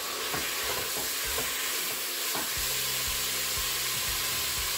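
Half-cooked diced chicken sizzling and frying in oil in a Crockpot Express multi-cooker's pot on the brown/sauté setting, with a spatula stirring through it and giving small scattered knocks.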